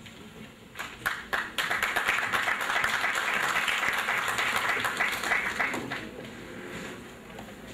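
Audience applauding. A few separate claps about a second in swell into steady applause, which dies away after about six seconds.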